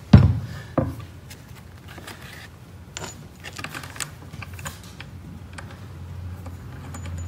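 A heavy knock, then a second smaller one under a second in, as a Galaxy RS100 radiator edger is handled and set down on a wooden tabletop, followed by small clicks and rustling as a sanding disc is pressed onto its pad.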